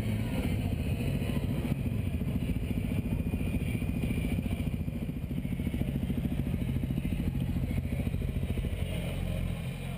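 Suzuki DR-Z400 supermoto's single-cylinder four-stroke engine running at low revs, a steady rapid train of firing pulses as the bike rolls slowly.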